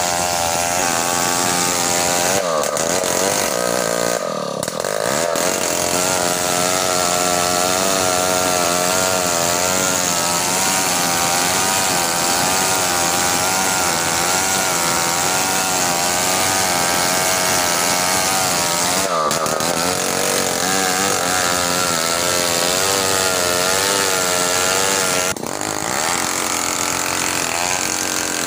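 Two-stroke chainsaw running at high revs, its engine pitch wavering up and down as it works, with a few brief breaks.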